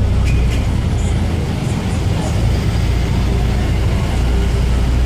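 Steady low rumble of a motor vehicle and road traffic on a busy street, heard from a moving vehicle.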